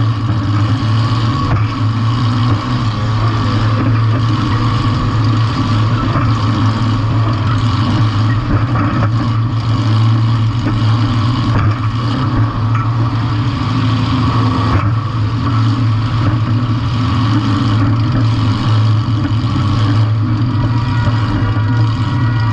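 Compact demolition-derby cars' engines running loud and steady, with a few faint knocks.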